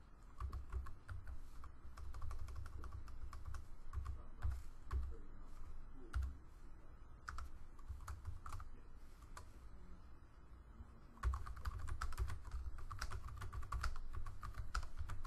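Typing on a computer keyboard: quick key clicks in bursts, thinning out for a moment about two-thirds of the way through before a fast run of typing.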